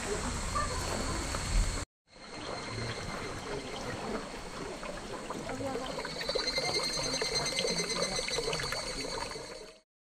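Water trickling from bamboo spouts into a shallow spring pool, with a steady high-pitched whine running alongside that grows stronger about halfway through. It follows a brief stretch of outdoor ambience at a busy shrine and stops abruptly near the end.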